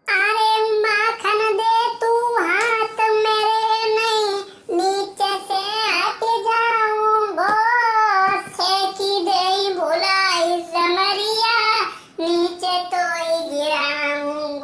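A single high-pitched voice singing unaccompanied, holding long wavering notes, with short breaks about four seconds in and near the end.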